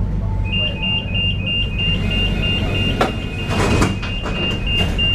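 A tram's warning beeper sounding a fast series of short high beeps, about five a second, that starts about half a second in: the door-closing warning. It plays over the steady low hum of the tram, and several sharp knocks and clatters come in from about three seconds in.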